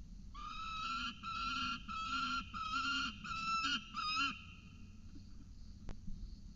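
Peregrine falcon calling: a quick series of about seven harsh, wavering wails, each about half a second long, over about four seconds. A single sharp click comes near the end.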